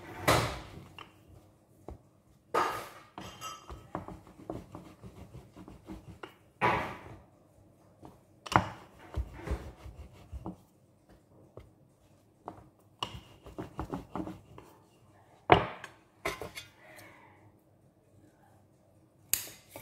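Wooden rolling pin rolling over slices of sandwich bread and knocking on a wooden cutting board, with sharp knocks and clatters every couple of seconds and softer rolling rumbles between.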